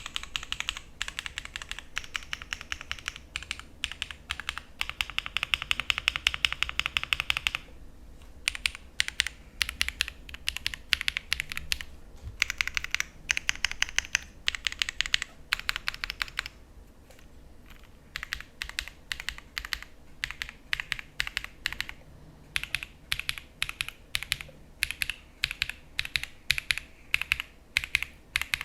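Typing on a Jris75 mechanical keyboard with Sarokeys BCP linear switches: fast, dense runs of keystrokes with short breaks about eight seconds in and again around the middle.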